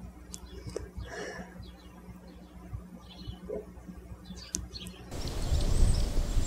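Quiet background with a faint low hum and a few soft, short clicks. About five seconds in it switches abruptly to wind rumbling on the microphone outdoors.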